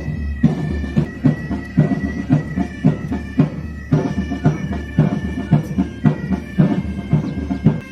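Pipe band playing a march: bagpipes sounding a steady drone and melody over a regular drum beat.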